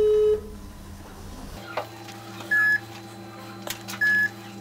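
Telephone call ringing out on speaker. A steady low ringback tone ends just after the start, then the line changes and two short high beeps sound about a second and a half apart. The call goes unanswered.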